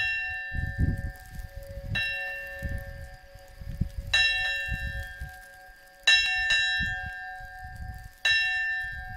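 A bell struck about every two seconds, each stroke ringing out and fading, with two strokes close together around six seconds in. A low, irregular rumble runs underneath.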